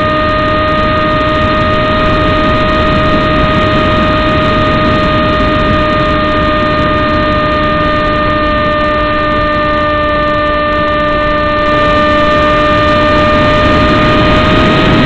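An RC plane's motor and propeller running at a steady speed, heard from a camera on board. It makes a steady whine over loud rushing air, and the whine grows a little louder and higher near the end.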